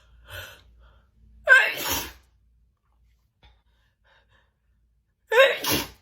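A woman sneezing twice, about four seconds apart, each a loud voiced intake breaking into a wet, hissing burst, as part of a messy sneezing fit.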